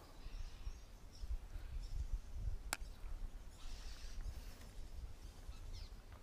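Close handling noise as fingers work a soft-plastic hellgrammite bait and fishing line near the microphone: an uneven low rumble with some faint scratchy rubbing, and one sharp click a little under three seconds in.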